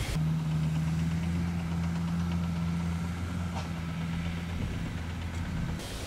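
Engine of a rice harvester converted to carry rice sacks, running steadily at idle with a low, even hum. It starts just after the beginning and cuts off abruptly near the end.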